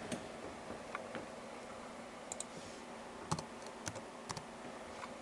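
Computer keys and mouse buttons clicking: about ten short, quiet clicks spread irregularly, a couple in quick pairs, over a faint steady hum.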